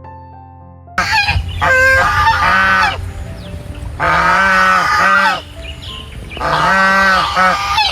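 Geese honking: a run of loud, drawn-out calls starting about a second in, with a steady low hum underneath.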